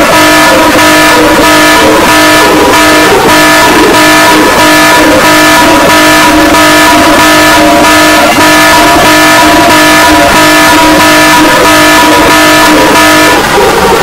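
Harsh, very loud electronic alert tone of the mock emergency-alarm (EAS-style) kind, made of several steady pitches sounding at once with a fast, even pulse. At the very end the tones slide down in pitch.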